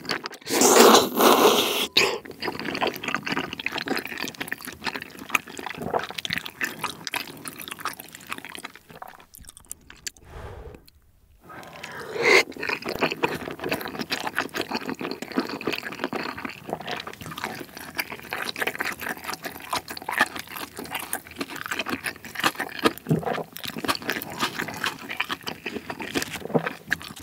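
Close-miked slurping and chewing of chewy wheat-flour rice cakes (tteokbokki) in spicy sauce. A loud wet slurp comes about a second in, then steady wet chewing and mouth smacking. There is a brief lull near the middle, then another loud wet slurp or bite.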